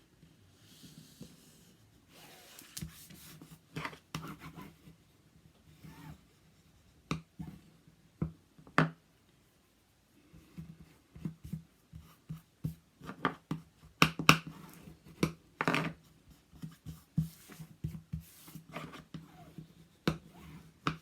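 Hands folding and pressing covering paper down over the corner of a scrapbook binder cover: irregular taps, clicks and paper rustles, busiest a little past the middle.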